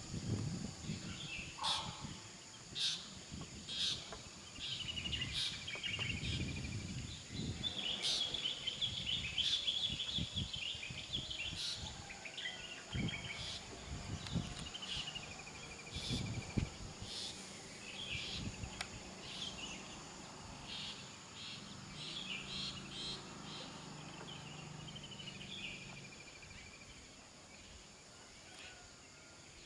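Small birds chirping in short, repeated calls over a steady high-pitched insect drone. An uneven low rumble runs under them through the first half or so and then dies away.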